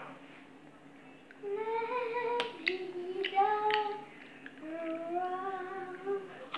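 A child's voice singing a few long, drawn-out notes, starting about a second and a half in, with a couple of light clicks.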